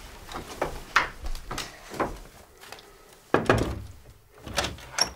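Quick light footsteps on a wooden floor, then a few heavy wooden thumps at a bedroom door as it is handled, the loudest a little past the middle.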